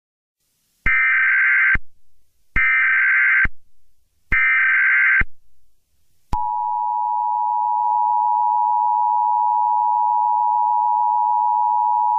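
Emergency Alert System alert tones: three short bursts of SAME header data tones, about a second each with a pause between. About six seconds in, the steady EAS two-tone attention signal (853 and 960 Hz) begins.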